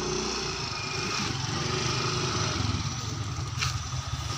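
Small motorcycle engine idling steadily, with a short click near the end.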